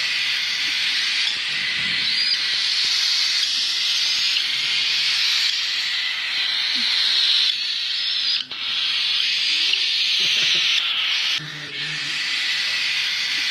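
Baby cockatiel chicks begging for food during hand-feeding: a continuous harsh, hissy chorus of begging calls that breaks off briefly twice, about eight and a half and eleven and a half seconds in.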